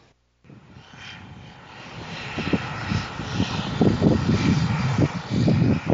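Single-engine propeller airplane flying low overhead, its engine sound growing louder as it approaches, with uneven low rumbling.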